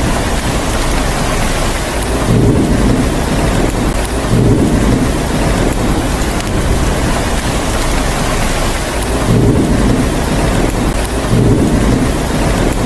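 Steady heavy rain, with low rumbles of thunder swelling four times, in two pairs about two seconds apart.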